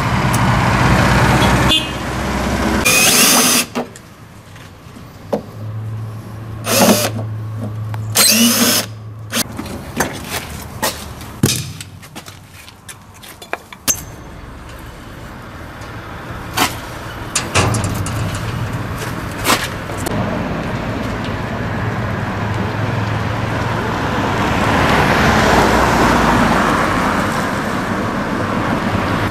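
Repair work on an electric mobility scooter: scattered clicks and knocks of tools on metal and plastic, with a few short loud bursts. In the second half a car's engine and tyres rise to a peak and fade as it drives past.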